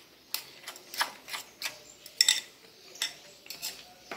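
A fork stirring a thick egg-and-chopped-filling mixture in a ceramic bowl, clicking and scraping against the bowl's sides about twice a second at an uneven pace.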